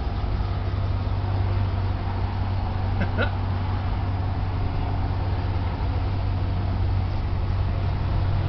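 Steady low hum of a gas-station fuel dispenser pumping gasoline into a motorhome's tank, over background noise, with a short chirp about three seconds in.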